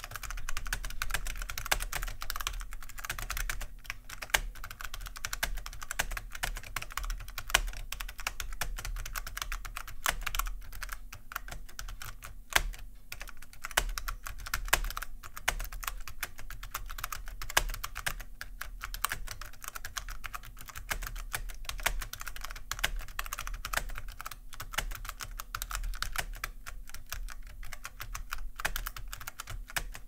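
Continuous fast typing on the Apple IIc computer's built-in mechanical keyboard: a dense stream of key clicks and keycap clacks with only brief pauses.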